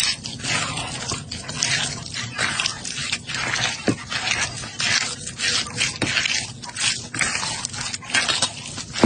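Close-miked chewing and eating: a continuous run of wet, crackling mouth sounds and small smacks, with a few sharp clicks.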